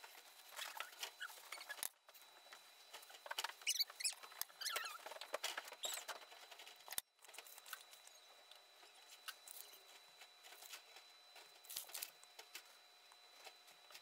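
Pencil scratching across a sheet of paper in short, irregular strokes, tracing and drawing the outline of a hand saw handle. The strokes are louder in the first half and fainter after about seven seconds, with two brief gaps.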